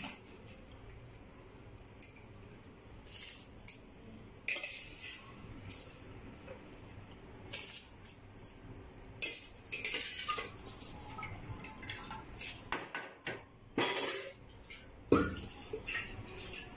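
Metal spoon clinking and scraping against a metal cooking pot in irregular bursts as soaked rice is added to boiling masala water and stirred in.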